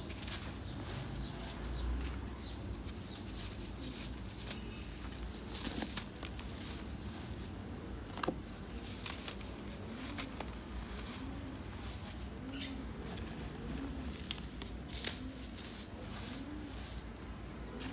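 Dry red dirt lumps crunching and crumbling in a hand, scattered gritty crackles over a low steady hum. From about halfway a dove coos repeatedly in the background, about once a second.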